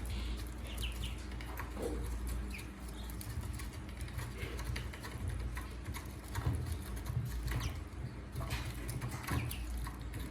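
Baby ducks peeping in short, scattered high calls while feeding, with many soft clicks and taps among them over a low steady hum.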